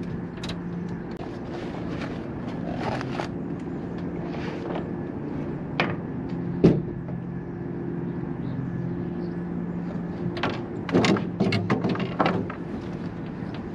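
Knocks and rattles of gear being handled on a fishing boat's deck, with a sharp knock about halfway through and a run of clattering near the end, over a steady low mechanical hum.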